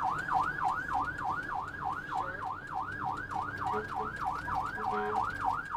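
Ambulance siren on yelp: a fast, even rising-and-falling wail, about three to four sweeps a second.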